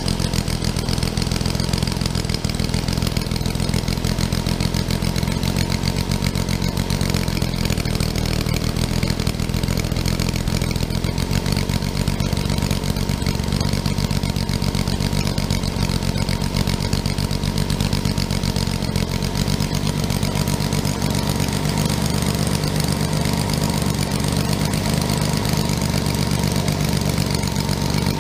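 Home-built 60 cm³ three-cylinder model engine, built after a large ship's diesel, running steadily with a fast, even firing beat.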